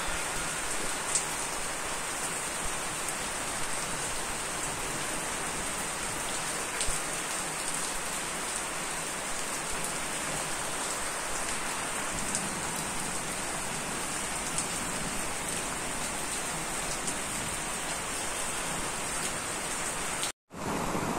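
Steady rain falling on surfaces, with scattered individual drops ticking through it. The sound cuts out for a moment near the end.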